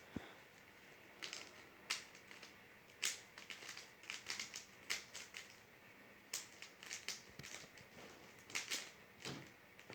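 Plastic Rubik's cube being turned by hand: irregular clicks and clacks of the layers snapping around, a few a second with short pauses.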